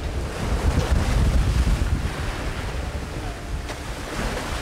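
Rough sea breaking and washing over a sailboat's deck, with heavy wind rumble buffeting the microphone.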